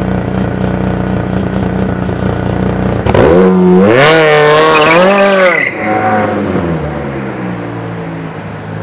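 Supercharged Opel Z22SES 2.2-litre four-cylinder running through an exhaust fitted with a flap: steady idle, then about three seconds in a sudden sharp rev that holds for a couple of seconds with wavering pitch, before dropping back and fading as the car pulls away.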